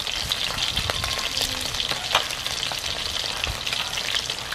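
Split banak (mullet) fillets shallow-frying in hot oil in a pan: a steady sizzle with scattered crackles and pops of spattering oil.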